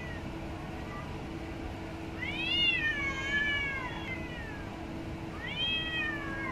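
Two domestic cats in a face-off, one giving drawn-out threat yowls: a long wavering yowl that rises and then falls, starting about two seconds in, and a shorter one near the end. This is the warning call of a territorial standoff between the cats.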